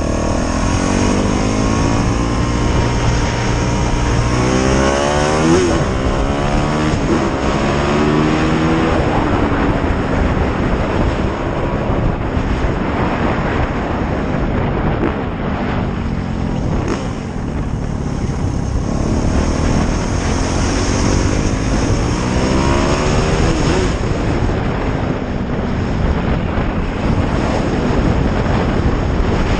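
Motorcycle engine under way, its pitch climbing and dropping again and again as it accelerates and shifts gears, over steady wind noise.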